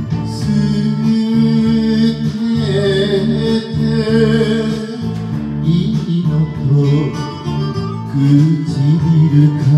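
Enka karaoke backing track playing, with a man singing over it into a microphone.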